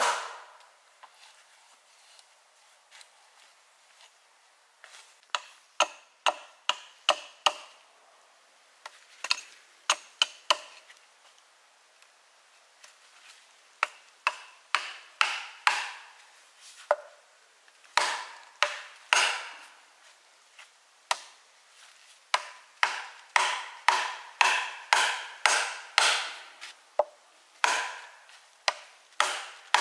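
A hatchet knocking on a wooden wedge driven into a mossy log, splitting it lengthwise. The sharp wooden knocks come in bursts of about two a second with short pauses, and the strikes are densest and loudest in the second half.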